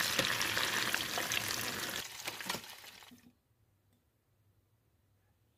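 Breaded chicken strips deep-frying in vegetable oil: a dense sizzle with fine crackling, thinning out and stopping about three seconds in.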